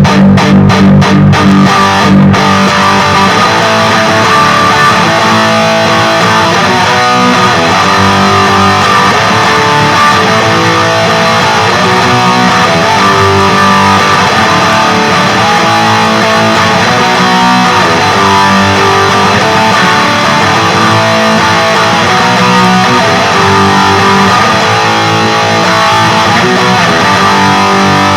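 Electric guitar with active pickups played through a Peavey Vypyr 15 modelling amp on its high-gain XXX amp model, riffing continuously. In the first two seconds the chords are cut short several times in quick stop-start stabs before the playing runs on unbroken.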